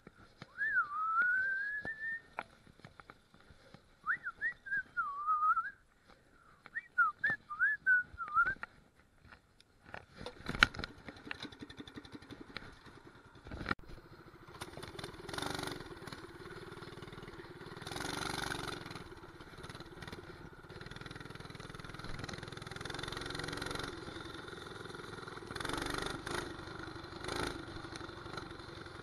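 Someone whistles a wavering tune in three short phrases. Then, from about ten seconds in, a mini bike's 212 cc single-cylinder four-stroke engine runs steadily as the bike is ridden, with a rushing noise of wind and road.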